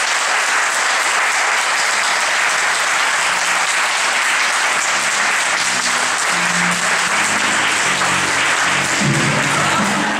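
Sustained applause from a roomful of people. About halfway through, music with a low bass line comes in under the clapping.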